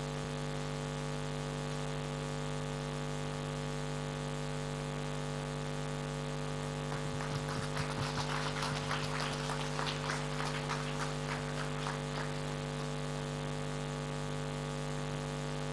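A short round of clapping that starts about seven seconds in and dies away after about five seconds, over a steady low hum.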